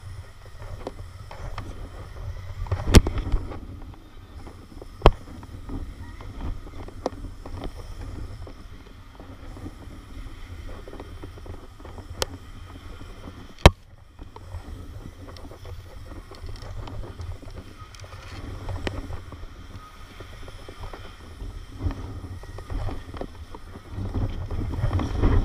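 Wind buffeting the microphone of a body-worn camera during an abseil down a tower, heard as a steady low rumble. A few sharp clicks and knocks stand out, about four across the span.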